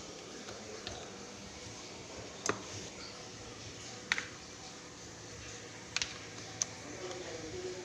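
Four sharp clicks or taps, spread a second or two apart, like tool or part handling during a repair, over a faint steady hiss.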